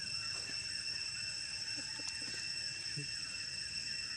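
Steady high-pitched insect drone, with a few faint short sounds around the middle.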